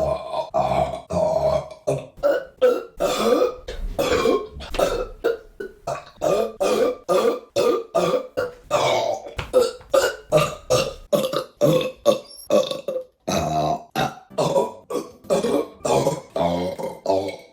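A woman burping over and over: a long run of short belches in quick succession, about two or three a second.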